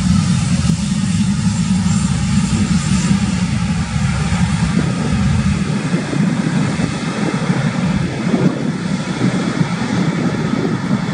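The twin Pratt & Whitney PW4060 turbofans of a Boeing 767-300ER running at high power for takeoff: a loud, steady jet noise, deepest in the low range.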